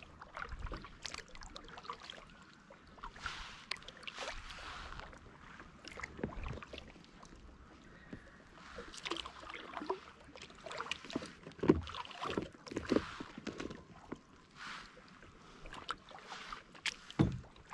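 Kayak paddle strokes: the blades dip and swish through the water in an uneven rhythm, about one stroke every second or two, with a few sharp knocks in between.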